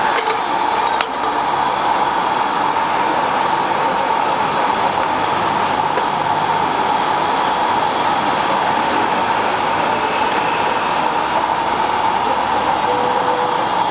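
Steady, loud mechanical-sounding noise with a constant hum, with a few faint clicks of containers being handled.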